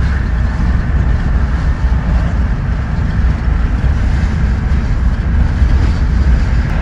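Steady low rumble of road and wind noise inside a vehicle cruising at highway speed.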